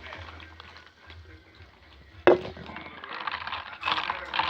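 Close-up eating and food-handling noise: one sharp snap about two seconds in, then steady crackling and crunching that grows louder toward the end.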